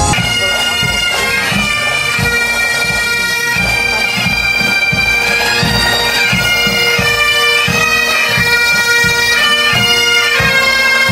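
Bagpipe music: a melody of held notes over a steady drone, with a regular low beat underneath.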